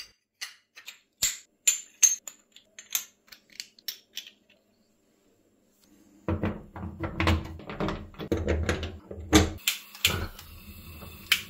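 Metal gas-stove burner parts clinking and clicking as they are set back into place: a string of sharp, irregular clicks, a short pause, then more knocks over a low rumble.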